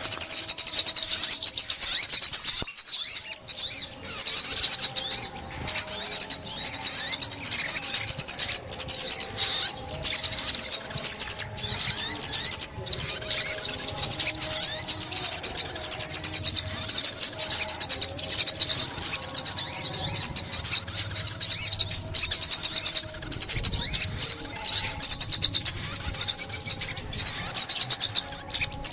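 Sunbird song: loud, rapid, high-pitched twittering and trilling, going on almost without a break. It is used as a lure call for trapping sunbirds.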